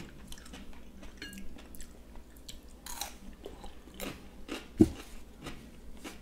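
Close-up eating sounds: wet chewing and crunching of cucumber and soup, with scattered small clicks. One short low thump about five seconds in is the loudest sound.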